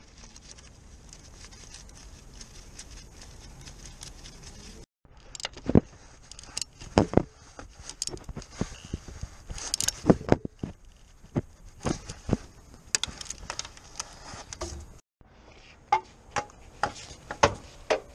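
Irregular metallic clicks and knocks of parts and tools being handled while working on a car's starter motor. These come after a few seconds of low steady background noise.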